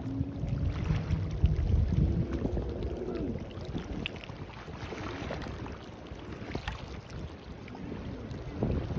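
A small boat's engine running out on the water, its pitch rising and falling as it changes speed, over wind buffeting the microphone and waves at the shore.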